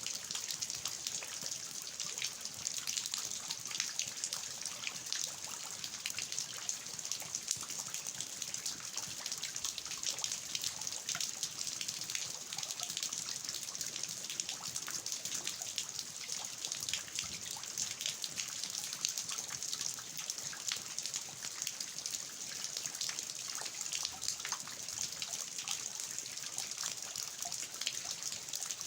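Steady rain falling, a dense even patter of drops, with rainwater dripping and trickling from the roof eaves.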